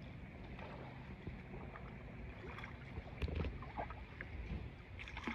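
Plastic paddle dipping and splashing in shallow lake water beside a small inflatable dinghy: light, irregular strokes, with a louder cluster of splashes a little past halfway.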